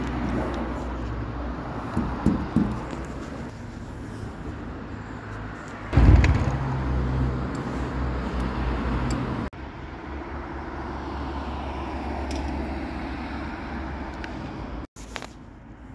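Street background noise with traffic rumble. A sudden loud low surge comes about six seconds in, and the sound changes abruptly near ten seconds and again near fifteen seconds where short clips are cut together.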